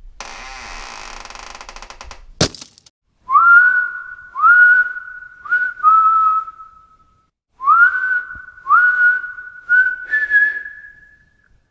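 A rough, rasping noise lasting about two seconds ends in a sharp click. Then comes a run of about eight whistled notes, each swooping up into a held pitch; the last is pitched higher and held longest.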